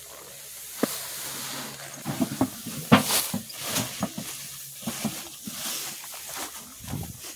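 Threshed rice grain scooped with a metal can and poured into a woven plastic sack: hissing rushes of pouring grain among irregular scrapes and clicks of the can and rustles of the sack, loudest about three seconds in.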